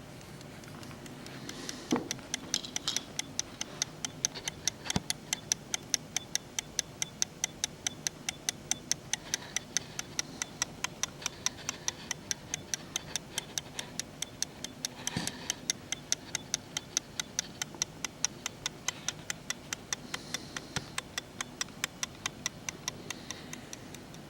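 Watch ticking close to the microphone: a rapid, even run of ticks that starts about two seconds in, with a couple of louder handling knocks.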